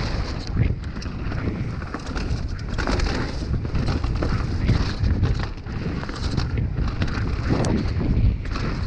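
Downhill mountain bike running fast over a dirt and root trail: wind buffeting the camera microphone, tyres rumbling on the ground and a steady clatter of knocks and rattles from the bike over bumps.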